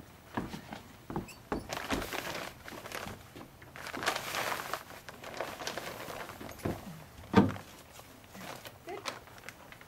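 A crinkly tarp draped over a horse rustling and crackling in irregular bursts as it is pulled and smoothed over the horse's head and back, with a louder thump about seven seconds in.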